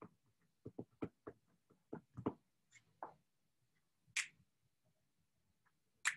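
Faint, irregular clicks and taps, about ten in the first three seconds, then two brief hissing sounds about four and six seconds in.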